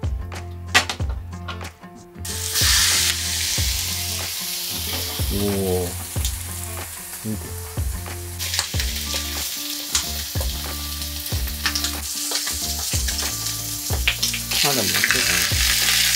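Chicken thighs sizzling as they fry skin-side down in a pan, the sizzle starting suddenly about two seconds in and carrying on steadily, with scattered clicks.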